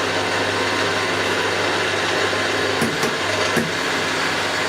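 A machine motor running steadily with an even hum, with a few light clicks about three seconds in.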